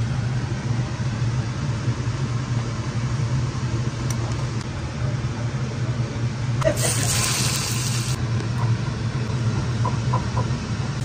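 Steady low mechanical hum, with a loud rush of running water about seven seconds in that lasts about a second and a half.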